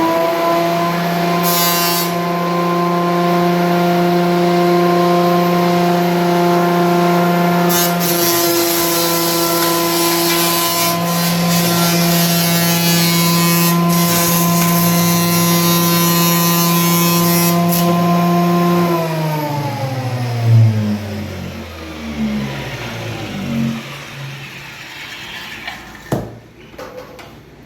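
RYU 12-inch portable thickness planer running with a steady motor whine, with several stretches of harsher cutter noise as wood feeds through. About nineteen seconds in the motor is switched off and winds down, its pitch falling over about five seconds, and a single knock follows near the end.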